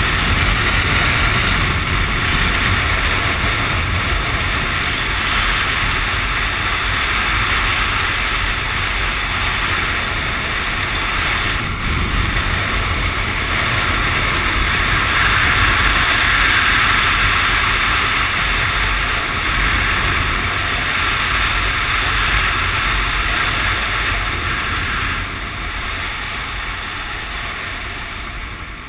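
Harley-Davidson Sportster V-twin running steadily at road speed, heard through a steady rush of wind over the handlebar-mounted camera's microphone. It gets quieter for the last few seconds as the bike slows.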